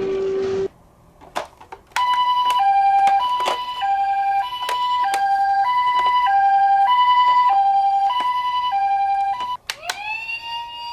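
Japanese ambulance two-tone 'pi-po' siren, a higher and a lower note alternating about every half second, with sharp clicks and knocks among it. A steady tone cuts off early on before it starts, and near the end a siren wail rises and then holds.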